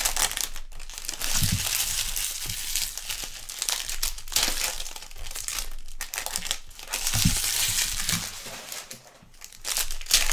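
Plastic trading-card pack wrappers being torn open and crinkled, in bursts of crackling with short pauses between, with a couple of soft knocks.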